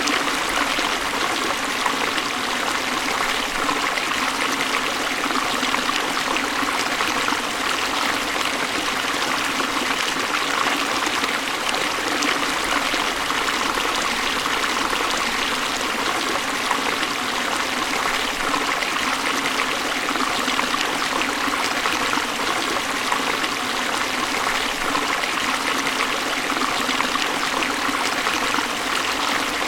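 Waterfall: water falling and splashing in a steady, unchanging rush.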